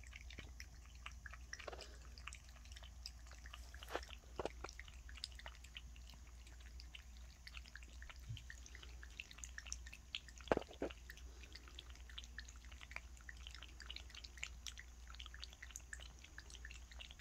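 Cat lapping water from a stainless steel bowl: a steady run of small, faint wet clicks, with a few louder ones, the loudest a little past halfway.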